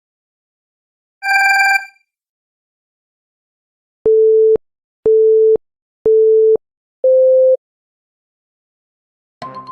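Electronic countdown beeps: three identical short beeps a second apart, then a fourth, slightly higher-pitched beep, like a race-start countdown. A single shorter, brighter electronic tone sounds about a second in, before the beeps.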